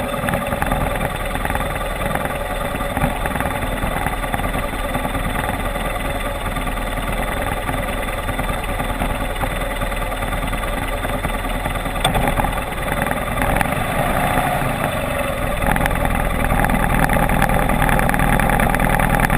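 Motorcycle engine running steadily at low speed over rough ground, getting a little louder near the end.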